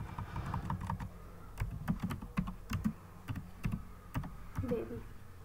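Typing on a computer keyboard: irregular runs of key clicks with short pauses between words.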